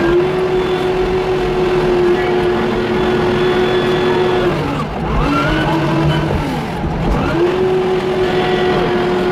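Wheel loader's diesel engine running at high revs, heard from the operator's seat. The revs dip and pick back up twice around the middle.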